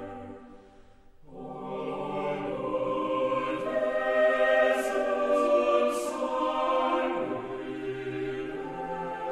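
Choral music: voices holding long sustained chords. One chord fades out about half a second in and a new one swells up about a second in, with a few short 's' sounds from the sung words near the middle.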